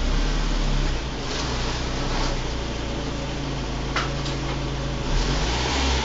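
Škoda Felicia's engine idling steadily, heard inside a small concrete garage, with a couple of faint clicks about four seconds in.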